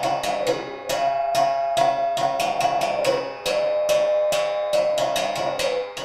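Music with a quick, steady percussion beat, sharp clicks about three to four a second under a held melody line that steps between notes; it fades out at the end.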